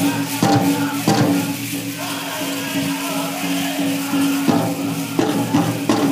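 A pow-wow drum group singing in chorus over a big drum struck in a steady beat, about one and a half beats a second. In the middle the drumbeat drops out for about three seconds while the voices hold a note, then the beat comes back.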